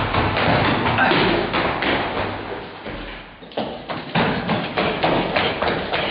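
Hurried running footsteps on stairs and a hard hallway floor: a quick series of thuds and taps that dips for a moment about halfway through, then comes back sharper and more evenly spaced.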